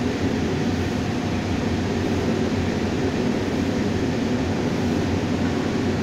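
A lead-recycling rotary furnace plant running: a steady, even machine noise with a low hum underneath, unchanging throughout.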